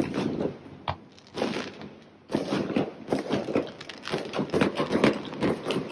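Fireworks going off: a sharp bang about a second in, then dense crackling and popping from about two seconds in.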